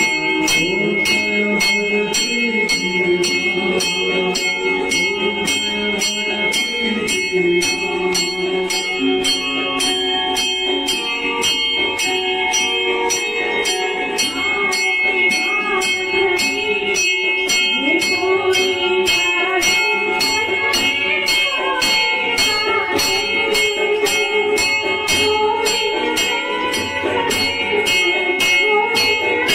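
A temple bell struck steadily, about two strokes a second, over music with a melody.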